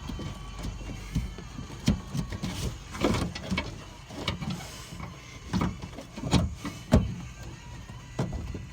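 Irregular knocks, clicks and rattles of a car door's lock mechanism and cable being handled and worked loose inside the door. There is a cluster of sharper knocks in the middle.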